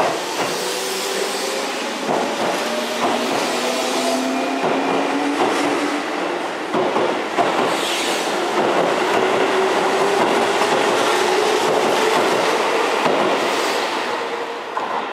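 Keihan 8000 series electric train pulling out and gathering speed: its traction motors give a slowly rising whine over the clatter of wheels on the rails, easing off near the end as the last car passes.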